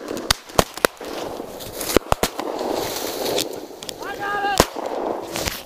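Shotgun shots fired at a flushed game bird: a quick string of sharp reports in the first second, two or three more about two seconds in, and the loudest single shot shortly before the end. A person calls out briefly just before that last shot.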